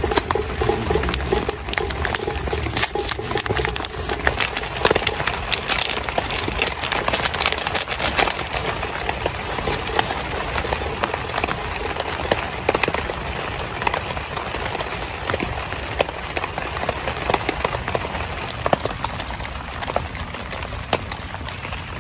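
Raindrops pattering on a tent: a dense run of irregular taps over a steady hiss. The taps thin out after about nine seconds.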